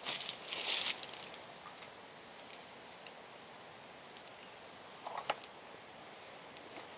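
Footsteps crunching through dry forest leaf litter in the first second, then fading. A steady faint high insect drone runs underneath, and there is one short crackle about five seconds in.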